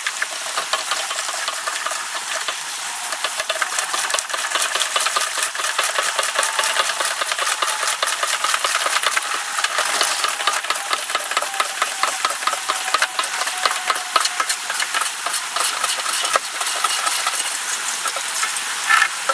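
Gasoline being hand-pumped out of a generator's fuel tank through a siphon hose into a plastic gas can: a steady rushing hiss of flowing fuel with a fast flutter through it.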